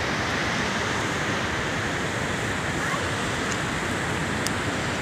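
Steady rushing of Hattebergfossen waterfall, running heavy with rain and snowmelt.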